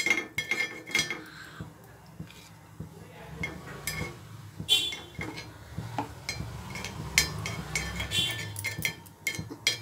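Small metal spoon tapping and clinking against the cups of a paniyaram pan as ghee is spooned into them: scattered light clicks, a few with a short metallic ring, over a low steady hum.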